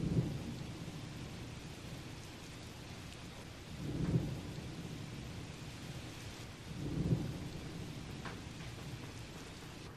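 A steady, even hiss with three low rumbles that swell up and fade: one at the start, one about four seconds in, one about seven seconds in.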